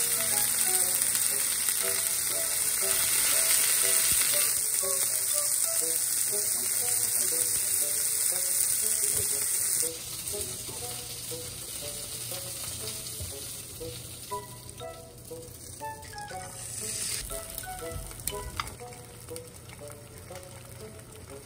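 Meat pieces sizzling as they fry in a nonstick frying pan and are turned with chopsticks; the sizzle drops sharply about halfway through, leaving a quieter crackle. Light background music plays throughout.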